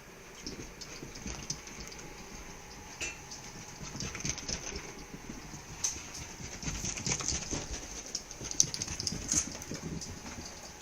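A cat and a small dog scampering, their paws and claws making quick, irregular tapping and clicking with soft thumps as the cat chases the dog.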